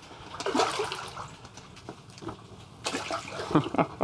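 Water splashing and gurgling close by, in two spells: one about half a second in and a louder one near the end.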